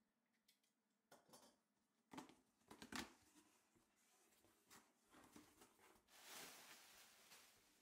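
Faint handling of a cardboard shipping box as it is cut open and its flaps lifted: a few sharp taps and scrapes, then a longer rustling scrape about six seconds in.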